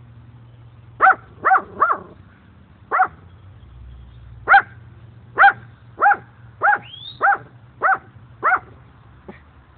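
A dog barking in about eleven short single barks at uneven intervals, one of them ending in a rising squeak just past the middle.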